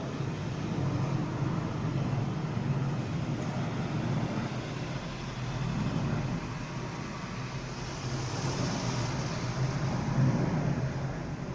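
Road traffic noise from outside an open window: a steady rumble, with a hiss swelling and fading about eight seconds in like a car passing.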